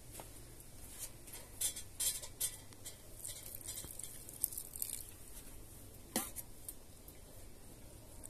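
Kitchen utensils clinking and scraping against a cooking pot: scattered light clicks, busiest about two seconds in, with a sharper knock about six seconds in.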